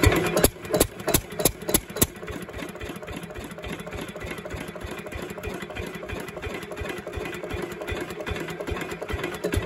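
Lister CS-clone single-cylinder diesel engine running at low speed. About half a second in its loud beat drops away; a few loud knocks follow, then it settles to a quieter, steady, even beat.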